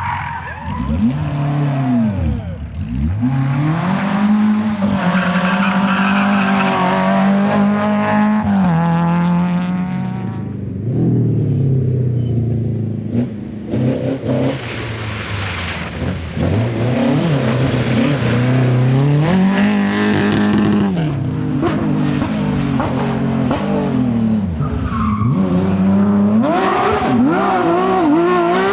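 Rally cars driven flat out, their engines revving up and dropping again and again with gear changes and lifts, with tyre squeal and skidding.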